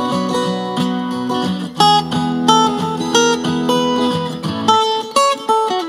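Background music: acoustic guitar playing a quick run of plucked notes.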